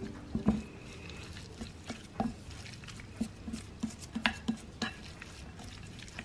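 Two wooden spoons stirring a dry mixture of grated cheese and carrot on a plate: soft rustling, with repeated light knocks of the spoons against the plate, about two a second.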